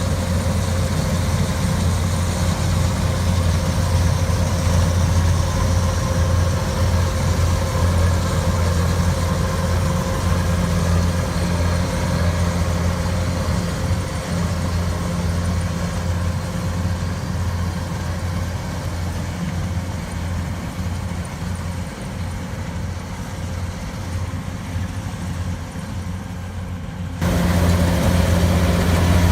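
A rice harvesting machine's engine running steadily with a low hum. It grows suddenly louder near the end.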